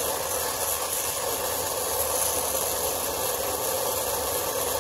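Brazing torch flame hissing steadily while it heats a fitting for a brazed joint.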